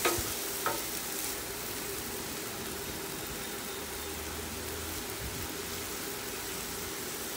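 Shaved beef sizzling on a Blackstone flat-top griddle, a steady hiss, with a metal spatula clicking against the griddle twice in the first second as the meat is turned.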